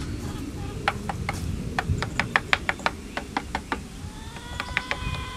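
Metal hive tool tapping and clicking against a wooden hive entrance reducer as it is worked into place: a quick run of sharp taps, three or four a second. Near the end a faint pitched whine with overtones sets in and rises slightly.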